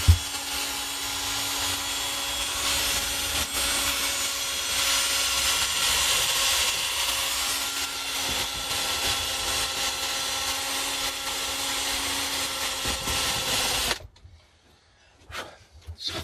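Handheld rotary tool running steadily at speed with a small disposable wire brush, scrubbing dirt off a Japanese motorcycle engine: a constant motor whine under a harsh scratching hiss. It stops about two seconds before the end.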